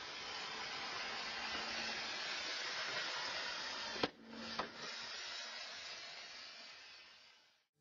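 Steady hiss from a security camera's microphone. About four seconds in, a thrown cardboard package hits the concrete driveway with a sharp smack, the loudest sound, and bounces once with a smaller knock about half a second later.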